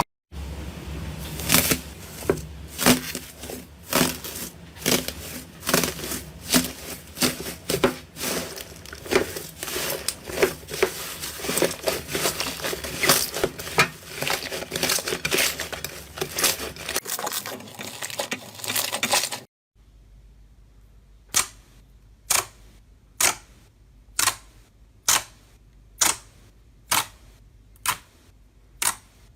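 Slime being squeezed and worked by hand, giving a dense run of irregular crackling and popping clicks. After a sudden cut at about two thirds of the way through, a new clip has single sharp pops, regular at about one a second.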